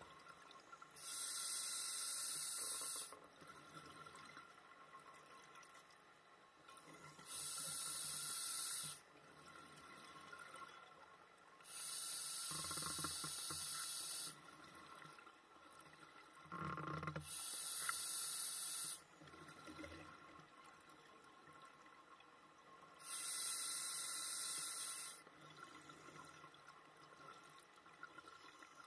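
Scuba regulator breathing heard underwater: five bursts of hissing, rushing bubbles about two seconds long, one roughly every five to six seconds.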